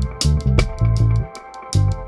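Background music with a steady beat: drums with regular hi-hat strokes over a pulsing bass line, with guitar.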